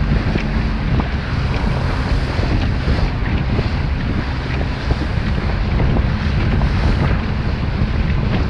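Wind buffeting the microphone over the steady running of an inflatable motor boat's engine, with water slapping and splashing against the hull as it runs through chop.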